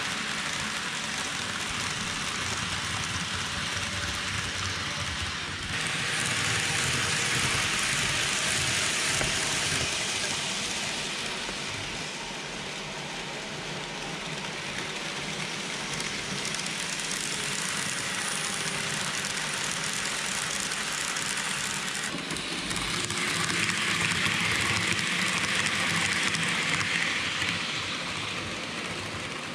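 KATO N-gauge 117 series model train running on layout track: a steady hiss and rattle of small wheels on rails and the motor. It gets louder about six seconds in and again for several seconds from about twenty-three seconds as the train runs close by.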